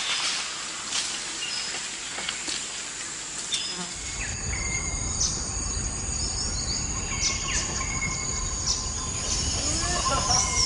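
Forest insects buzzing and trilling in a steady high drone, with many short chirps and whistles on top. About four seconds in, the background changes and a low rumble joins.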